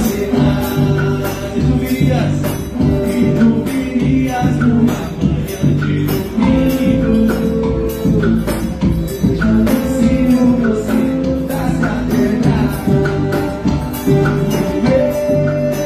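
Forró pé-de-serra band playing, driven by a steady triangle beat under bass, saxophone and guitar.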